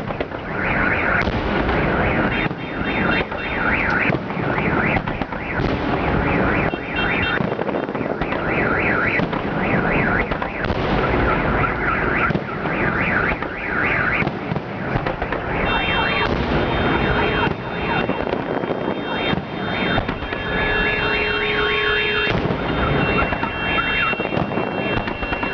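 Festive fireworks salute: a continuous barrage of bangs and crackles, with a car alarm sounding in repeating cycles through it, likely set off by the blasts.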